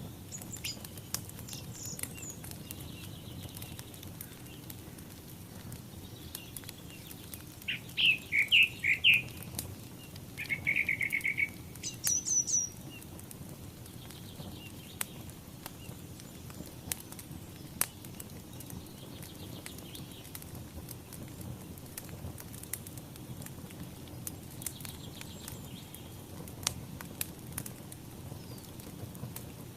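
A wood fire burning, with a soft steady rumble and scattered sharp crackles and pops. Over it, songbirds chirp: a cluster of quick calls about 8 seconds in, a rapid trill just after, and a few high notes around 12 seconds.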